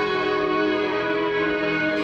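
Film score music played in a theatre, with long held chords that change slowly.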